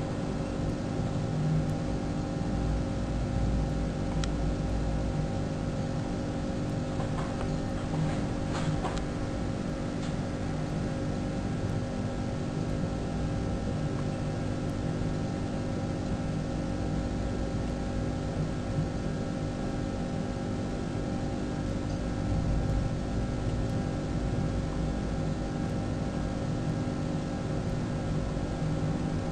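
Steady mechanical hum with a low rumble and several steady tones, with a few faint clicks about seven to nine seconds in.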